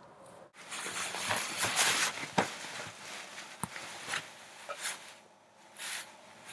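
Close rustling of clothing and dry grass as someone kneels and handles a body lying on the ground, loudest just after it starts about half a second in, with a few sharp clicks.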